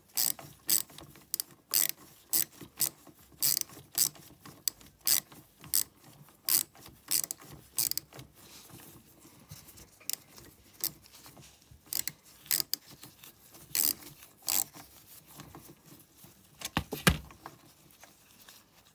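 Small ratchet wrench clicking in short runs as the carburettor's mounting bolts are tightened onto the intake manifold. The clicks come thickly at first and thin out after about the halfway point, and one louder clack comes near the end.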